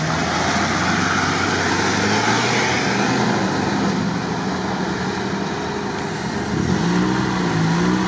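Off-road SUV engine running, its revs rising and falling near the end, over a steady rushing noise.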